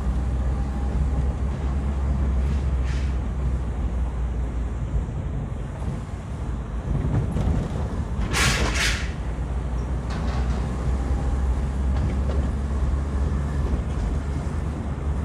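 Interior noise of a manual car driven slowly: a steady low engine and road hum. About eight seconds in, a short, sharp hiss cuts across it for under a second.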